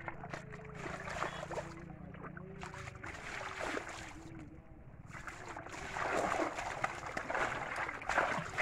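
Water splashing and streaming off a wet fine-mesh ring fishing net as it is hauled out of shallow water, louder from about six seconds in. A steady low hum runs underneath at first and stops about a third of the way through.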